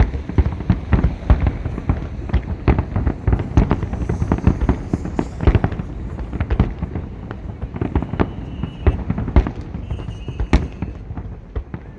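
Fireworks salute: a dense, continuous barrage of bangs and pops, several a second, with one especially sharp crack about ten and a half seconds in.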